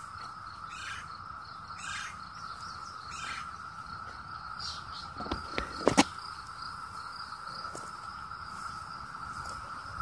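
Chorus of 17-year periodical cicadas (Brood II), a steady, even drone at one pitch. A few sharp clicks come about five to six seconds in.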